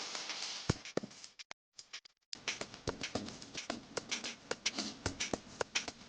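Irregular light clicks and taps, several a second, with a brief dead-silent gap about one and a half seconds in.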